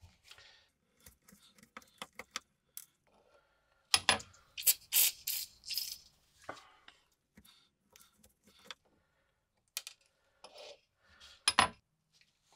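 Light metallic clicks and scrapes of a steel pick against the rusty steel socket of a WW2 British spike bayonet, then, about four seconds in, several short hisses of an aerosol can spraying the socket. After the spraying come more scattered metal clicks as the socket is handled, ending in one sharper click.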